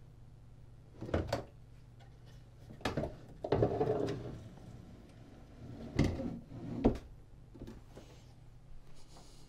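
Internal chassis of an aluminium instrument case being slid out along its rails by the back panel: several metal clunks and knocks, with a longer scraping slide about three and a half seconds in.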